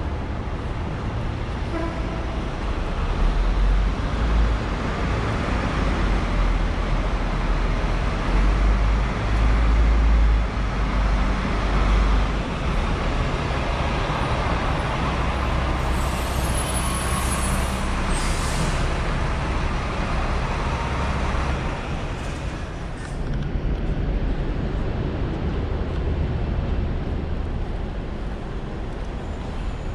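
Heavy road traffic passing on a busy street, a deep rumble of large vehicles that swells about three seconds in and eases after twelve, with a short high hiss near the middle.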